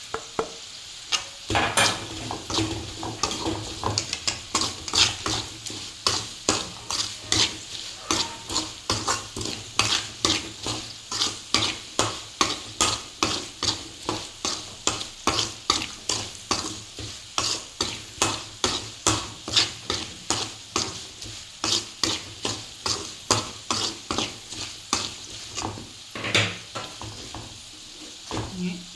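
Spoon stirring and scraping around a pan in a steady rhythm, about two strokes a second, as chilli and turmeric powders fry in hot oil with a light sizzle. The stirring stops a couple of seconds before the end.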